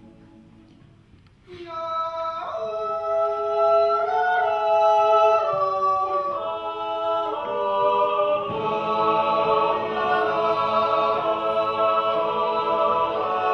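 Men's yodel choir singing a Zäuerli, a wordless natural yodel sung a cappella. After a brief hush, held chords set in about a second and a half in and move from chord to chord.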